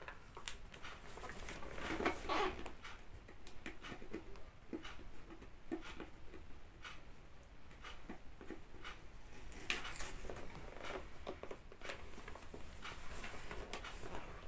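Cardboard camera box being opened and handled by hand: light scratching, rustling and small clicks of fingers and packaging, with brief flurries about two seconds in and again around ten seconds in.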